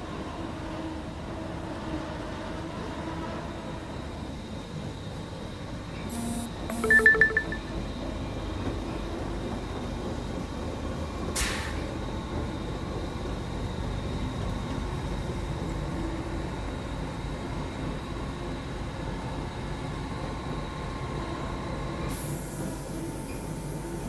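Steady hum of feed-mill machinery. About seven seconds in, a brief loud pulsing tone sounds, and there is a single sharp click a few seconds later. A hiss comes in near the end.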